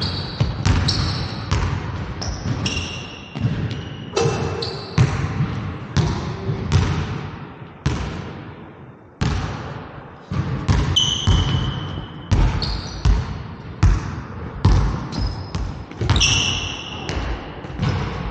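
Basketball dribbled on a hardwood gym floor in repeated bounces, each echoing in the large hall, with short high sneaker squeaks on the floor now and then.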